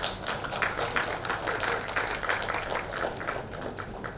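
Audience applauding: a dense, uneven patter of hand claps.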